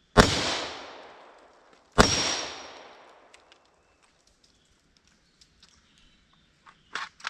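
Two shots from a KUSA KR103 AK-pattern rifle firing 7.62x39 ammunition, about two seconds apart, each with a long echoing tail. A few faint clicks follow. No further shot comes because the rifle has failed to feed the next round.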